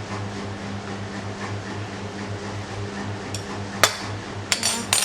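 A steady low hum, then near the end one sharp knock and a quick run of clinks as kitchenware, a bowl or dishes, is handled.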